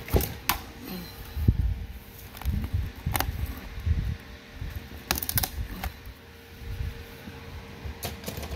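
Hands handling a shrink-wrapped cardboard box on a table: irregular rustling and crinkling of the plastic wrap and low thumps as it is turned over, with several sharp clicks, a cluster of them about five seconds in. A faint steady hum runs underneath.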